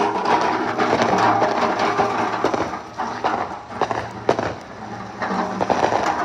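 Ground firework going off: a dense crackling and fizzing made of many quick pops, strongest in the first couple of seconds, easing, then picking up again about four to five seconds in.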